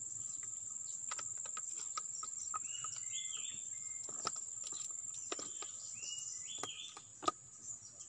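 Steady high-pitched insect chirring, with a few short bird chirps. Scattered clicks and gurgles come from an upturned plastic bottle glugging gear oil into an excavator's final drive.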